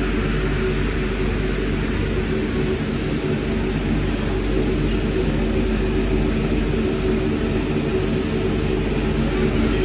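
Inside the car of an Alstom MP05 rubber-tyred metro train running through a tunnel: a steady rumble with a low hum of several steady tones underneath.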